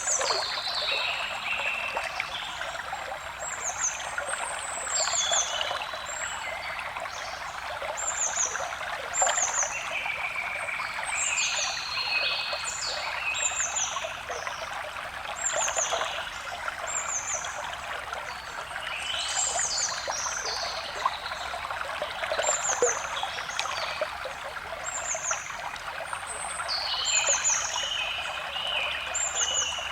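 Stream water trickling steadily, with forest songbirds calling over it: many short, high, downward-slurred chirps, repeated every second or so, and some lower chirping phrases.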